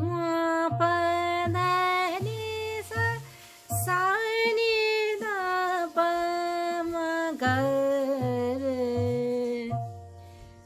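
A woman singing sargam syllables (sa re ga ma pa dha ni sa and back down) in Todi thaat, with komal re, ga and dha and tivra ma, one held note per syllable, over a steady drone and a low repeating beat. The singing stops near the end.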